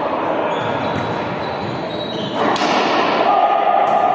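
Balls bouncing on an indoor court in a reverberant sports hall, with players' voices mixed in, a sudden louder thump-and-rush about two and a half seconds in.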